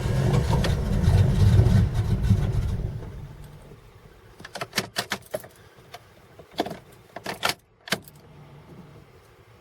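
1995 Jeep Grand Cherokee's 5.2-litre V8 cranking on the starter without catching, stopping about three seconds in: a hard cold start. It is followed by a scatter of short, sharp clicks.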